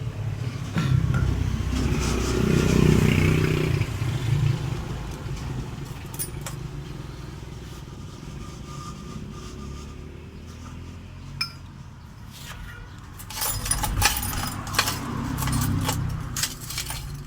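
Metal parts clinking and scraping as a new 6902 bearing is fitted to a Yamaha NMAX CVT pulley, with scattered sharp clicks. A vehicle engine rumbles in the background during the first few seconds and again near the end.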